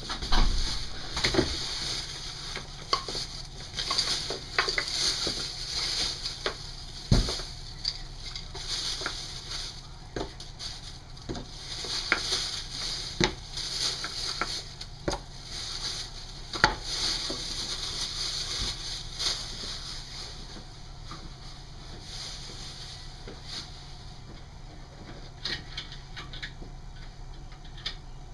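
Someone handling things in a kitchen: irregular knocks and clinks, as of dishes, utensils and wooden cabinet doors, over a steady hiss. A few knocks stand out louder, about 7, 13 and 17 seconds in.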